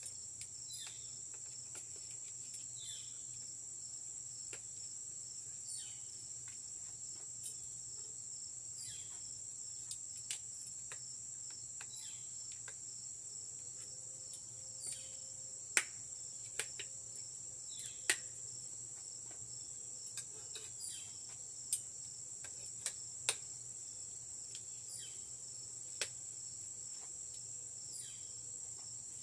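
A steady high-pitched insect chorus with a faint falling chirp every few seconds. Over it come scattered sharp clicks and taps as the tube frame and connectors of a four-tier mini greenhouse are handled and fitted together, the loudest a little past the middle.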